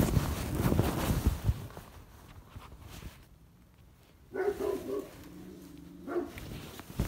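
Loud rustling and knocking handling noise for the first second and a half. Then, about four seconds in, a short pitched whine lasting about two seconds.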